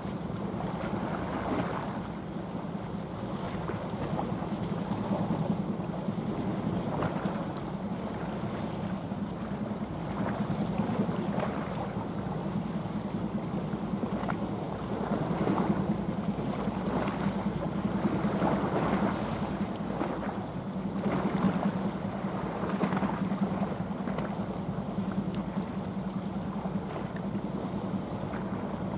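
The diesel engine of a passing small coastal sand carrier droning steadily at a low pitch, over the wash of its bow wave and the sea, which swells and fades every few seconds. Wind buffets the microphone.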